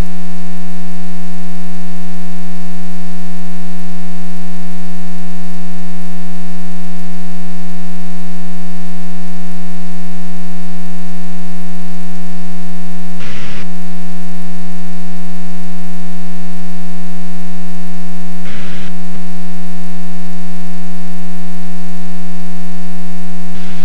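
Loud, steady electrical hum with a ladder of overtones in a light aircraft's cockpit audio feed, holding one pitch throughout. Two short crackles break through about 13 and 19 seconds in.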